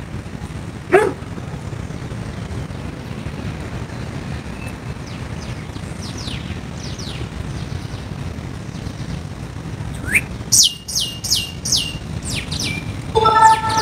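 Birds chirping outdoors, short notes that drop quickly in pitch, with a quick run of four or five near the end, over a steady low background rumble.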